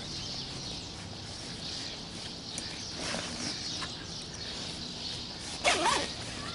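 Birds calling over outdoor riverbank ambience, with the rustle of a nylon weigh sling being handled on a padded unhooking mat. A brief, louder call stands out about five and a half seconds in.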